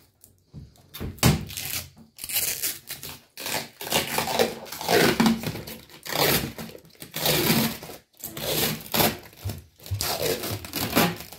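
Clear protective plastic film being peeled off a new washing machine's control panel and door, crinkling and tearing in a string of separate pulls with short pauses between them.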